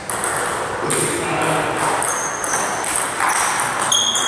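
Table tennis ball being hit back and forth in a rally, sharp clicks of the ball on the bats and table about twice a second, with a few short high-pitched tones among them.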